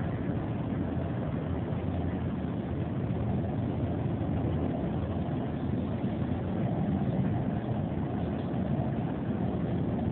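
Steady low engine rumble that runs on without change.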